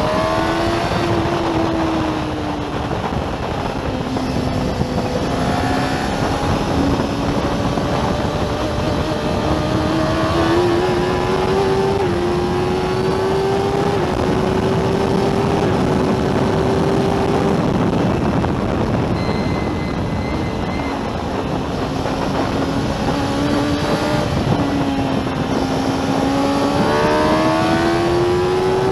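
Racing sidecar outfit's engine at high revs, heard on board. Its pitch drops about 2 seconds in and again about 18 seconds in, and climbs in steps with the throttle and gear changes in between and near the end, over a steady rush of wind and road noise.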